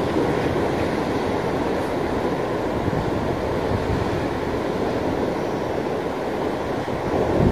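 Sea surf washing against the rocks in a steady rush, with wind rumbling on the microphone.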